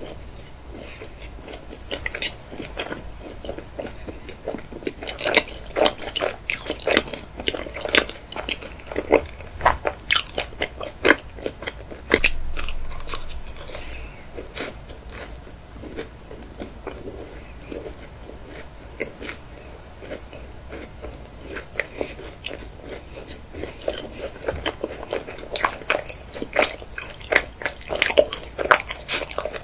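Close-up mouth sounds of a person chewing chocolate desserts: sticky, wet chewing with many small sharp clicks and light crunches, busiest near the end.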